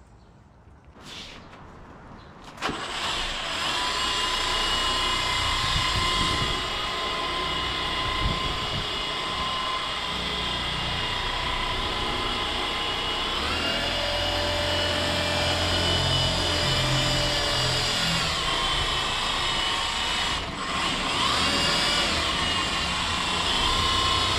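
Cordless car polisher running steadily on the paint, a machine whine that sets in about two and a half seconds in and shifts pitch slightly a few times as the load on the pad changes.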